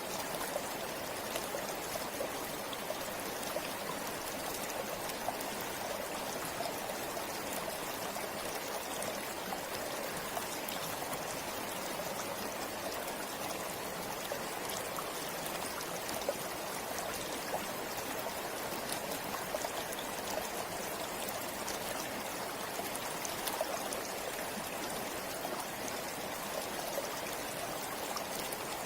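A river or stream flowing over rocks: a steady rush of water with many small splashes and trickles.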